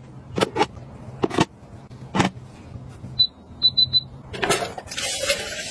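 Electric steamer's touch control panel beeping: one short high beep, then three quick beeps as the cooking time is set, after a few sharp clicks and knocks. A rushing noise follows near the end.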